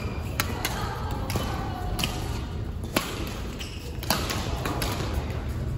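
Badminton rackets striking a shuttlecock during a doubles rally: a run of sharp, short hits about a second apart, with hollow, echoing hall noise underneath.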